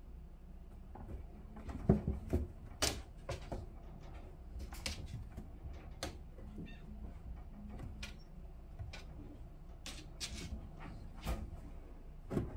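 Irregular knocks and taps as a cat paws and bumps against a kennel's clear acrylic door and lands inside the kennel while chasing a laser dot, over a low steady hum. The hardest knock comes about two seconds in, with a cluster of taps near the end.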